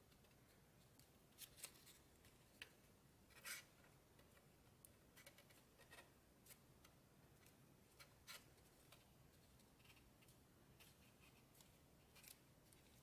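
Faint, scattered crinkles and ticks of stiff origami paper being pinched and creased between fingers, irregular and sparse, the loudest crackle about three and a half seconds in, over a very quiet room hum.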